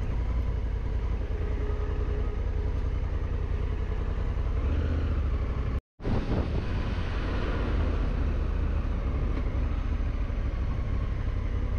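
Honda Africa Twin motorcycle running steadily on the road. The sound drops out for a moment about six seconds in.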